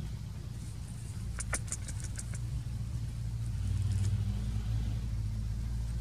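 Low, steady rumble of a truck engine running, swelling a little about four seconds in, with a brief run of sharp clicks about a second and a half in.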